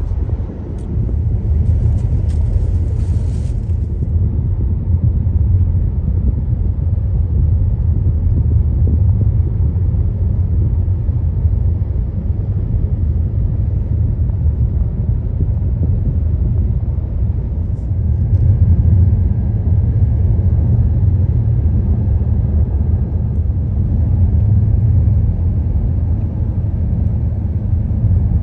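Steady low road rumble inside a moving car's cabin, tyres running on pavement on a long downhill descent.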